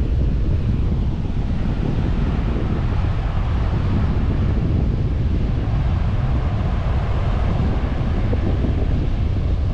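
Wind buffeting the microphone, a steady low rumble that covers everything, with sea surf washing faintly behind it.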